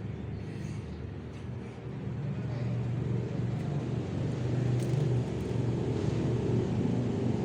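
A steady, low engine hum that grows louder about two seconds in.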